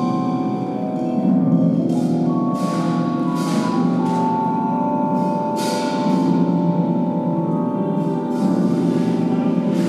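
Improvised chamber music: a harp's plucked strings and a vibraphone's mallet-struck notes ringing on over low sustained tones. Bright struck notes sound several times, and one high note is held for several seconds through the middle.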